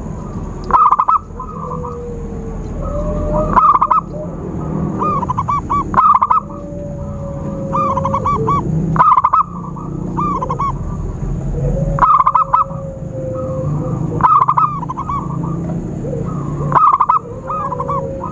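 Zebra dove (perkutut) cooing: a repeated phrase of quick, looping coo notes, seven phrases spaced about two and a half to three seconds apart. Used as a lure call to draw wild zebra doves. A fainter drawn-out lower note and a steady low rumble run underneath.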